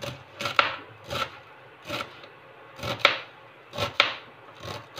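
Kitchen knife finely chopping radish leaves and stems on a cutting board: unhurried strokes, about seven in five seconds, each ending in a sharp knock of the blade on the board.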